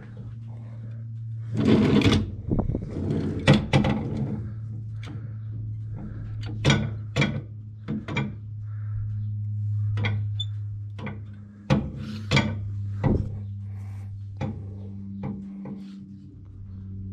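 A steady low engine hum, the grain truck idling on the scale, with a series of irregular sharp knocks and clunks over it.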